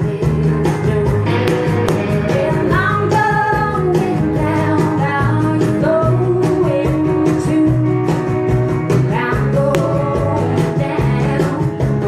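A live band playing: a woman singing over a steady cajon beat, with strummed acoustic guitar and electric guitar.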